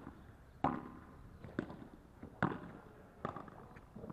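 A padel rally: a padel ball pops off solid rackets and bounces on the court, with four main hits roughly a second apart and fainter knocks between them.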